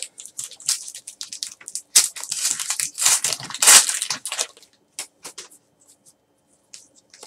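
Foil wrapper of a Donruss baseball card pack being torn open and crumpled: a quick run of crackling rips, loudest in the middle, thinning to a few faint rustles near the end as the cards are pulled out.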